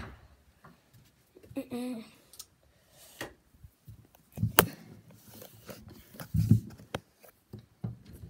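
Handling and rummaging noise around wooden cabinets: scattered knocks and clicks, the sharpest about four and a half seconds in and a dull thump about six and a half seconds in. A brief pitched sound comes about two seconds in.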